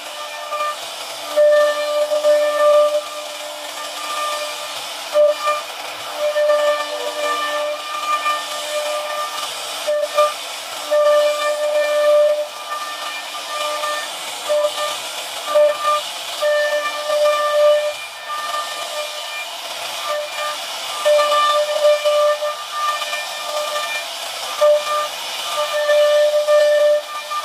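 CNC router spindle milling grooves in a wooden door panel: a high whine over a hiss of wood being cut, the whine strengthening and weakening in stretches of a second or two.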